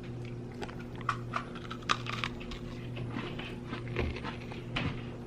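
Chewing and crunching of a maple-flavoured Oreo cookie: a scatter of short crisp crunches over a steady low hum.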